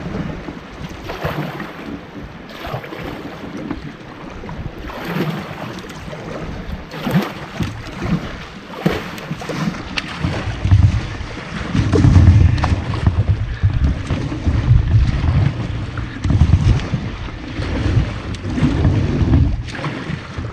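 Canoe paddled upstream against a river current: a paddle splash about every two seconds over water running along the hull. About halfway through, wind buffets the microphone with a low rumble.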